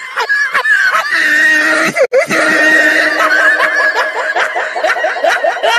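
High-pitched laughter in quick, falling 'ha' notes, with a long held high note in the middle and faster laughing near the end.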